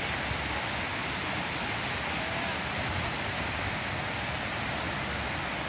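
Steady, even sound of shallow floodwater flowing along and down a concrete creek channel.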